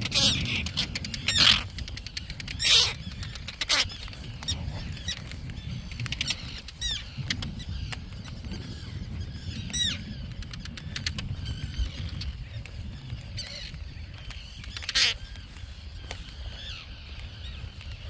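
Terns giving harsh alarm calls at an intruder near their nests: a burst of loud, sharp calls over the first few seconds, fainter calls around the middle, and another loud call about 15 seconds in, over a steady low rumble on the microphone.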